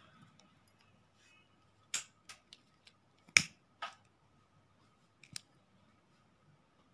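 Small handling clicks from a flint lighter and plastic beads: five or so sharp clicks, the loudest about three and a half seconds in, as the lighter is struck to melt the end of a macrame cord and fix a bead on it.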